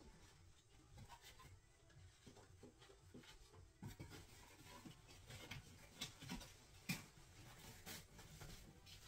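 Faint handling noise: light taps, clicks and rubbing of small objects being moved about, with a sharper knock about seven seconds in.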